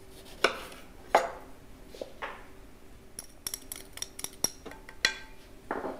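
A kitchen knife cuts through a lemon onto a wooden cutting board, giving a few sharp knocks in the first two seconds or so. About three seconds in comes a cluster of light clinks and taps of utensils against a glass mixing bowl as the lemon is squeezed over it.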